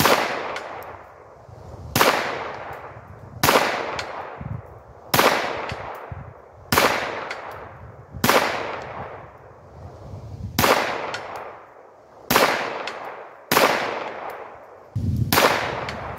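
A Sig Sauer P322 .22 rimfire pistol fires about ten single shots at a steady, unhurried pace, roughly one every one and a half to two seconds. Each shot has a long tail that fades slowly.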